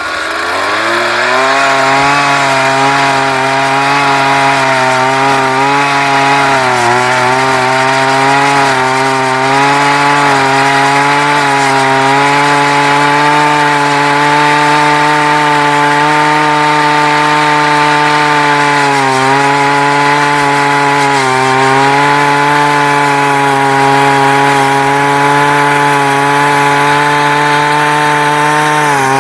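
Strike Master ice auger's Tecumseh engine, fitted with an aftermarket carburetor, revving up to full throttle about a second in and then running hard and steady while the 6-inch auger bores a hole through lake ice. The pitch dips briefly a few times as the engine is loaded.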